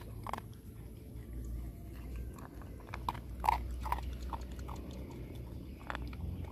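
A dog crunching dry kibble from a stainless steel bowl, with irregular crunches that come thickest about halfway through.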